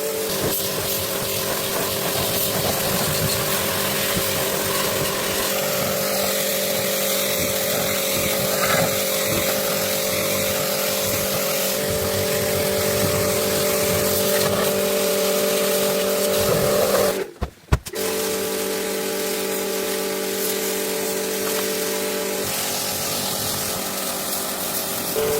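A motor running steadily with a constant hum, cut off for a moment about 17 seconds in.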